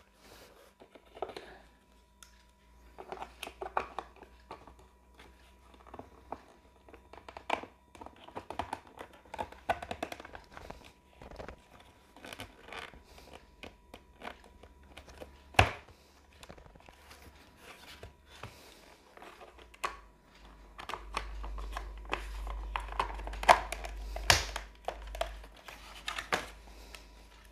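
Hard plastic panels of a Napolly locker cabinet being handled and fitted: scattered clicks, knocks and rustling, with a sharp knock about halfway through and another near the end.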